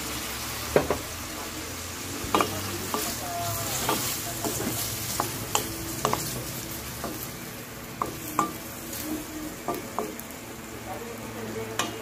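Pork, pork liver and scallops sizzling in a stainless-steel pan while a wooden spatula stirs them, with irregular knocks and scrapes of the spatula against the pan.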